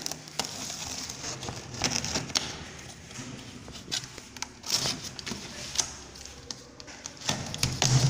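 Packing tape on a cardboard box being slit and torn open, with scattered scrapes, taps and crinkles of tape and cardboard. The cardboard flaps are pulled open near the end.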